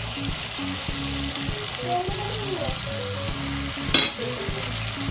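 Small fish, onions and peppers sizzling steadily in oil in a frying pan as they are stirred with a metal slotted spoon, with one sharp metallic clink about four seconds in.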